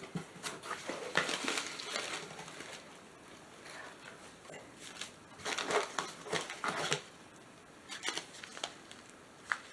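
Packaging being handled and rummaged through: irregular rustling and light knocks in two clusters, about a second in and again around the middle.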